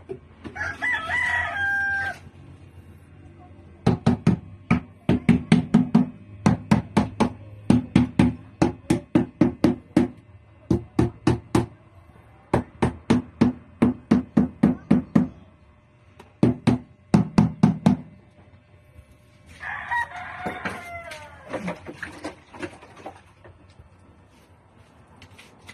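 A rooster crows near the start and again about twenty seconds in. Between the crows, a rubber mallet knocks quickly and repeatedly on the stainless steel sink, in runs of about three knocks a second, seating it into its fresh cement bed.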